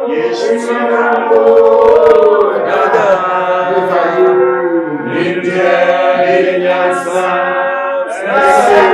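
Worship singing: voices chanting in long held notes that slide in pitch, with short breaks between phrases.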